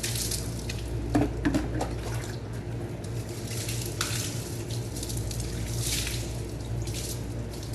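Water spraying and splashing while a bicycle is rinsed, coming in uneven bursts of hiss, with a few sharp knocks about a second in and a steady low hum underneath.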